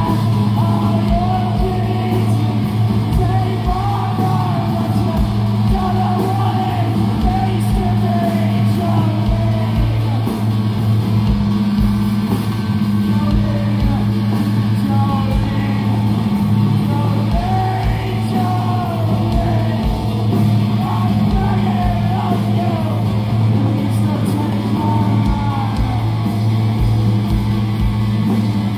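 Live rock band playing with electric guitars, bass and drums, with a singer's voice wavering over a steady, sustained low bass note.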